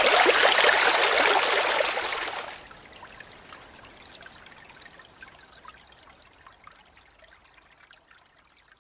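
Small woodland stream splashing and trickling over rocks. It fades down sharply about two and a half seconds in, leaving a faint trickle that dies away near the end.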